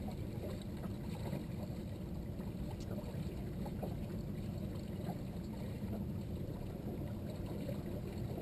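Steady wind rumble on the microphone with water lapping against the hull of a small open boat, and a few faint light knocks.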